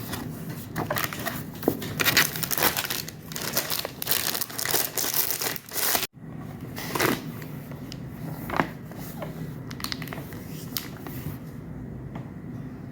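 Crinkling and rustling of packaging and paper merchandise being handled and unwrapped: dense for the first six seconds, then sparser and quieter.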